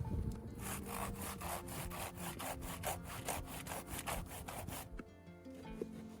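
Hand saw cutting through wood in quick, even rasping strokes, about four a second, that stop near the end.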